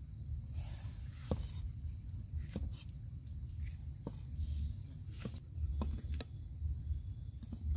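Cleaver cutting through tomatoes, the blade knocking on a wooden chopping board about once a second, over a low steady rumble.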